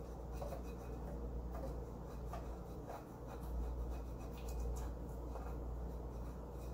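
Fingers scrubbing baking soda paste over the bottom of a non-stick pan: a steady rubbing sound.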